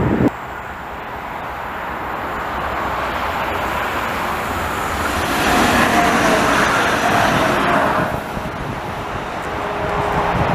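Stadler Citylink tram-train running past on rails. The rushing rumble of wheels on track grows as it approaches and is loudest as it goes by, about five to eight seconds in, with a faint steady whine. It then drops off quickly.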